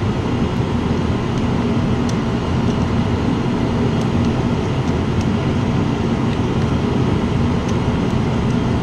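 A steady mechanical drone with a low hum. Over it come a few faint ticks from a metal pick scraping sludge out of the water jacket of a Honda Shadow VT750C V-twin's cylinder.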